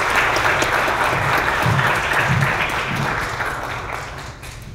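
Audience applauding at the end of a talk, fading away near the end.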